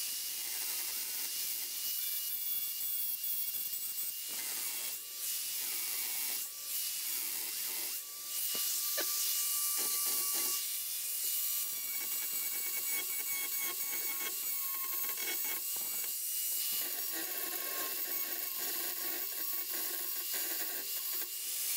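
Small electric grinder with a cut-off wheel cutting through tack welds on a steel square-tube frame: a steady high whine that dips briefly a few times as the wheel bites into the metal.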